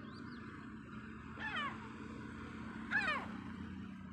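Two short gull cries, each falling in pitch, about a second and a half apart, the second louder, over a steady background hum.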